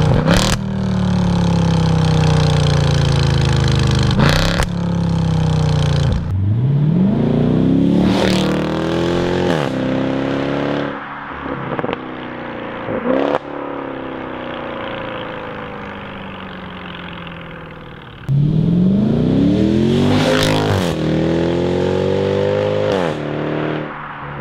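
Mercedes SLK55 AMG's 5.5-litre V8 through a custom stainless steel valved exhaust with the valves open. It runs steadily at first, then accelerates hard with the revs climbing and dropping through several gear changes and fading as the car draws away. About 18 seconds in it returns suddenly at full loudness with another hard acceleration through the gears.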